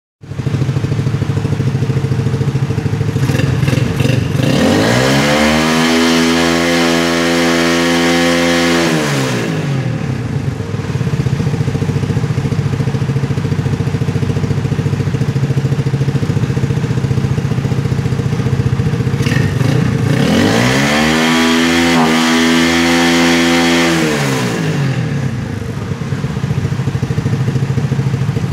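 Honda 67 motorcycle engine idling, revved up twice, about five seconds in and again about twenty seconds in. Each rev is held for about four seconds before the engine drops back to idle.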